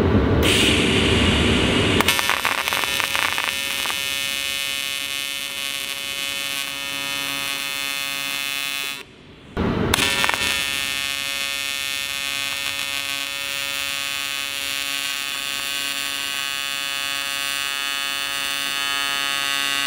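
AC TIG welding arc on an aluminium oil pan, buzzing steadily. It is harsher for the first couple of seconds, breaks off about nine seconds in, and restarts a moment later for a second run.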